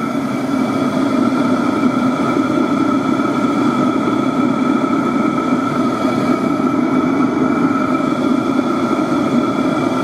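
Chinese 5 kW diesel air heater running steadily, its fan the main sound: a steady hum with several held higher tones. The fuel pump, pulsing at 4 Hz inside a plastic enclosure packed with sheep's wool, is drowned out by the fan.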